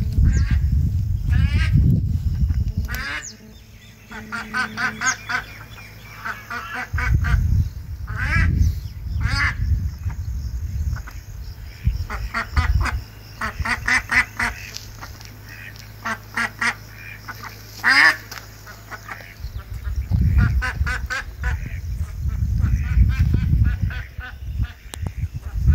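Wild ducks calling in quick runs of short repeated notes, again and again, with bursts of low rumble at the start, around seven seconds in and through the last few seconds.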